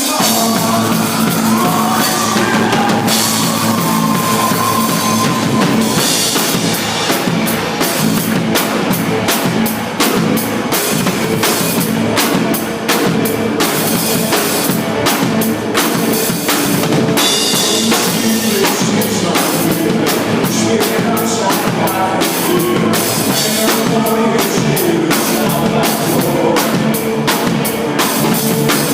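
Music with a drum kit keeping a steady beat over instruments.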